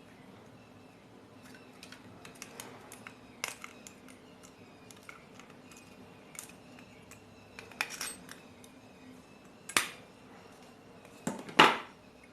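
Scattered light metallic clicks and clinks of small tools and meter probes being handled on a workbench, the loudest two near the end.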